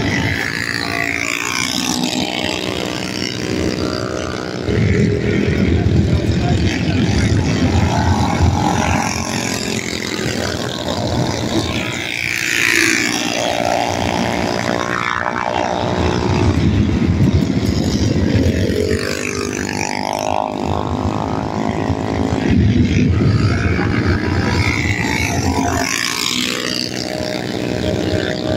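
Minibike engines racing as a pack, several small engines running at high revs at once. Their pitch rises and falls in waves as the bikes rev through the turns and pass by.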